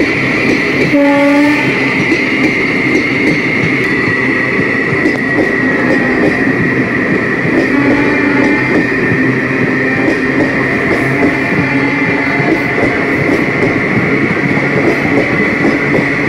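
Indian Railways express passenger coaches running past at speed, a loud steady rumble and clatter of wheels on rail with a steady high-pitched tone over it. A train horn sounds briefly about a second in, and again more faintly about eight seconds in.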